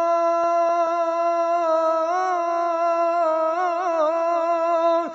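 A solo voice sings one long held 'o' in a Sindhi naat, with no instruments. The note holds steady, turns through quick melismatic ornaments in its second half, and breaks off just at the end.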